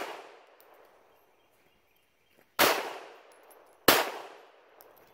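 Two shots about a second and a quarter apart from a WWI Spanish-made Ruby-pattern .32 ACP pistol, each ringing out and fading over about a second. The tail of a previous shot is dying away at the start.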